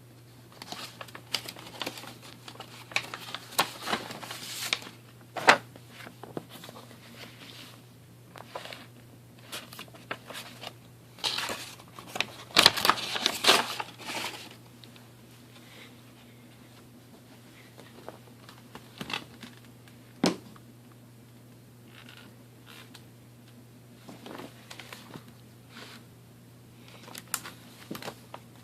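Irregular rustling, crinkling and sharp clicks from something being handled, with a busy stretch of rustling about halfway through. A faint steady low hum runs underneath; the vacuum motor is not running.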